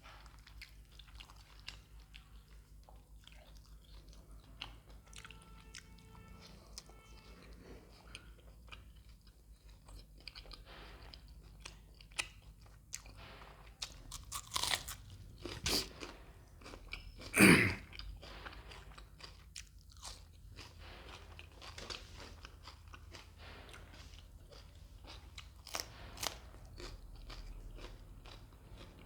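Close-miked chewing of food, with sharp crunchy bites among the wet mouth sounds; a cluster of loud crunches comes a little past halfway.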